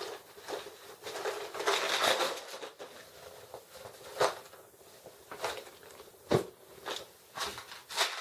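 A tackle bin being handled and gone through: rustling and clattering, with a few sharp clicks, the loudest about six seconds in.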